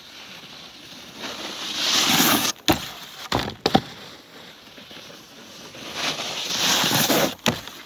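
Snowboards scraping over packed snow, swelling twice as two riders come in one after the other, each followed by sharp clacks as the board taps and slides on a metal flat bar.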